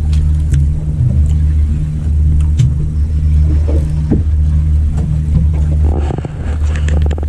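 A boat's engine running steadily with a deep, even hum, and a brief rattle of clicks near the end.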